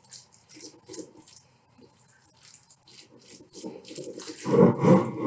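A utensil stirring a chunky trout tartare mixture in a ceramic bowl, giving irregular soft scrapes and light clicks against the bowl.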